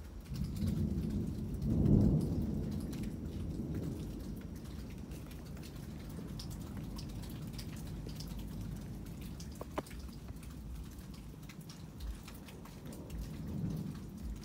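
Thunder rumbling: a deep roll builds about half a second in, is loudest about two seconds in, then fades slowly over several seconds, with a softer rumble near the end. Scattered raindrops patter and tick throughout.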